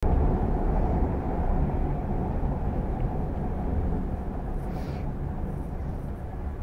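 Steady low rumble of a SkyTrain rapid-transit car running, heard from inside the carriage.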